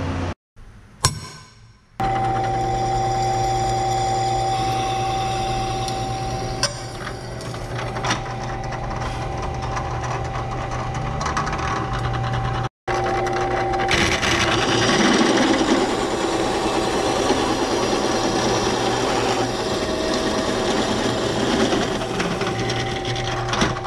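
Bench drill press running, its motor humming with a steady whine while the bit cuts 10 mm bolt holes through a steel motorcycle rear sprocket. A short metallic click comes first, and the drilling breaks off for an instant about halfway before going on.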